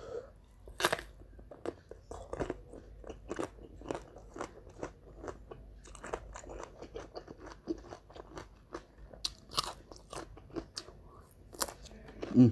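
Close-miked eating: crunching and chewing of a fried catfish meal with raw vegetables, many short wet crunches and mouth clicks at an irregular pace.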